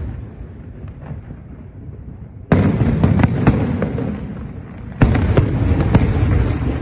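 Aerial firework shells bursting in two volleys, each starting with a sudden loud boom followed by several sharp cracks and a low rumble that fades.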